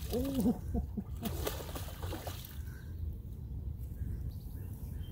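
Hooked fish thrashing and splashing at the water's surface close to the bank for about a second, starting a second or so in, over a steady low rumble.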